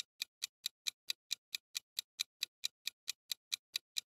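Countdown timer ticking sound effect: evenly spaced clock ticks, about four and a half a second, all at the same level.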